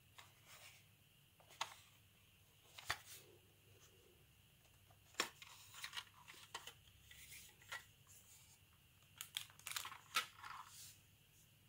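Plastic case of a Brother PT-H110 label maker being pried apart by hand: scattered sharp clicks and cracks as the snap-fit clips of the back shell let go, with scraping of plastic on plastic between them and several clicks in quick succession near the end.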